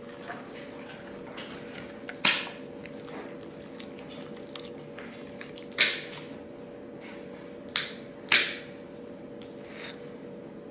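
Dog nail clippers snipping a dog's nails: four sharp snaps a few seconds apart, the last two close together, over a faint steady hum.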